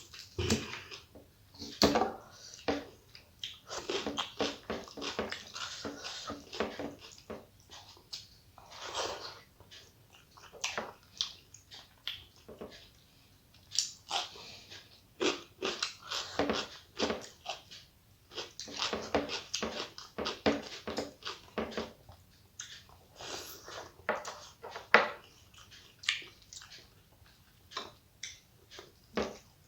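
Close-up eating sounds of a person eating rice and curry: irregular chewing and biting, many short sounds with brief pauses between them.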